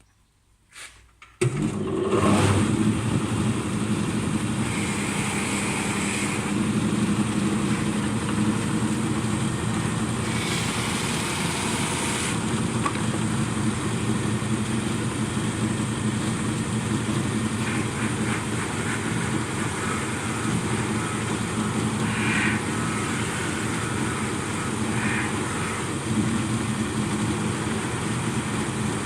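Polishing machine with a compound-loaded buffing mop switched on about a second and a half in, spinning up and then running steadily. A few stretches of louder, higher hiss come as the wooden door capping is buffed against the mop.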